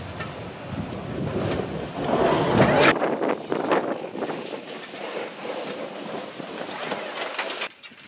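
Pickup truck engine running as its front plow blade pushes deep snow, heard under heavy wind buffeting the microphone; loudest about two to three seconds in, then breaking off sharply near the end.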